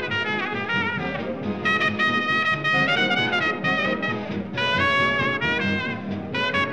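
Background instrumental music: a melody of held notes that step and slide in pitch.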